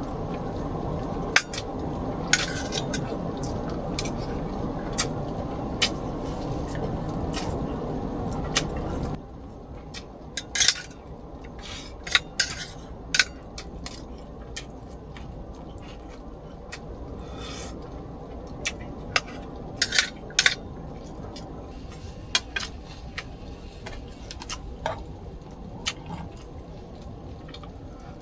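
Kitchenware clinking and tapping in sharp, irregular knocks, over a steady hiss that cuts off abruptly about nine seconds in.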